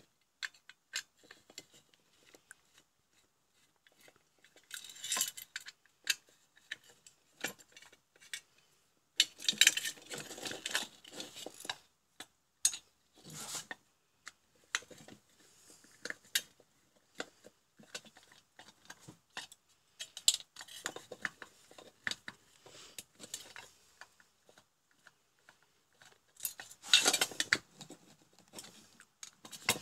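Screwdriver and hands working on an aluminium floodlight housing: scattered clicks and metallic clinks of the tool, screws and loose metal parts against the casing, with louder bursts of clatter about ten seconds in and near the end.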